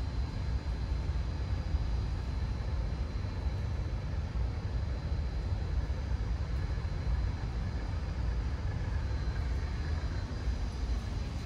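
Night city ambience: a steady low rumble with a faint, steady high-pitched whine over it.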